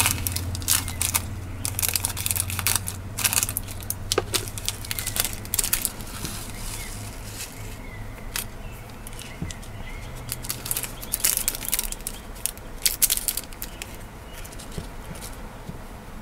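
Small plastic bag of Miyuki 11/0 glass seed beads crinkling as it is handled and opened, and the tiny beads spilling out into a palm with a rapid patter of light clicks. The crinkling and clicking come in flurries, busiest in the first few seconds and again about two-thirds of the way through.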